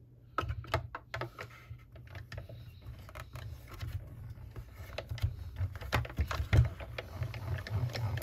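Plastic cutting plates handled and slid into a manual die-cutting machine, then its hand crank turned to roll them through: a run of clicks and clatters over a low rumble, loudest about six and a half seconds in.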